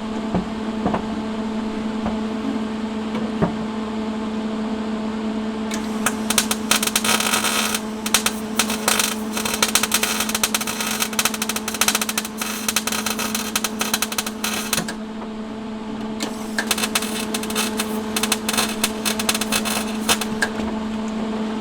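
MIG welder laying two short weld beads on sheet-metal car bodywork: a dense, sizzling arc crackle for about nine seconds, a brief pause, then a second run of about four seconds. A steady electrical hum runs underneath.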